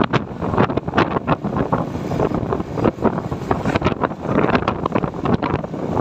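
Wind buffeting the microphone of a moving motorbike, a loud, uneven rush with the riding noise underneath.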